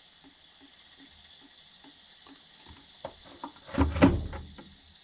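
Water dripping steadily from an opened pipe drain into a bucket, about three drips a second, as the outside spigot line is drained against freezing. A louder bump about four seconds in.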